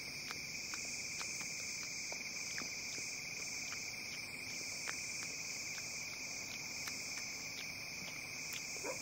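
Steady night chorus of crickets, a continuous high trill, with scattered faint clicks.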